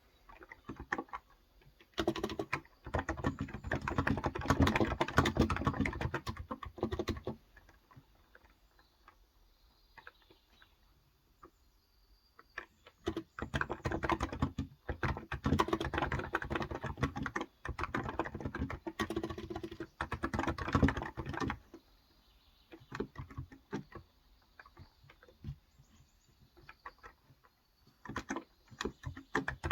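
Typing on a Cox Endeavour tenkeyless keyboard with electro-capacitive (Topre-style) 35 g switches. It comes in two fast, dense runs of keystrokes, with scattered single key presses and short pauses between them.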